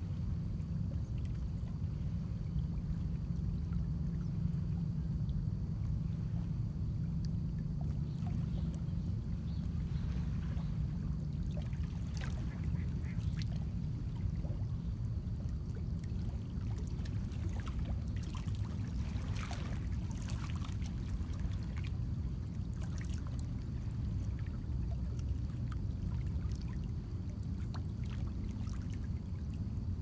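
Small lake waves lapping and splashing against shoreline rocks over a steady low rumble of wind, with birds calling now and then, most of it in the middle stretch.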